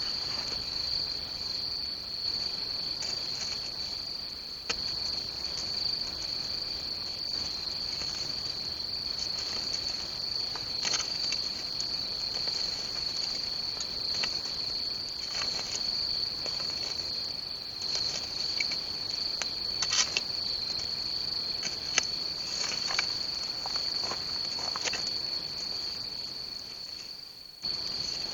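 Crickets chirping in a steady high trill, with scattered sharp crackles and snaps from a wood campfire.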